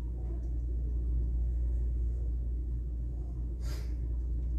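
Steady low room rumble, with a brief soft hiss about three and a half seconds in.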